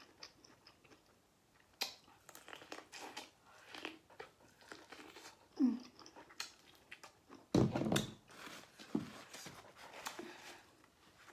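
Close-miked eating sounds: a person chewing and biting food, with scattered wet mouth clicks and a few short hums through the mouthful. The loudest stretch comes just after the middle.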